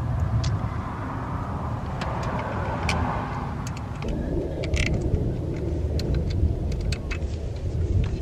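Small sharp metal clicks of a screwdriver turning the star (Torx) screws that hold a new idle air control valve to a throttle body, over a steady low rumble.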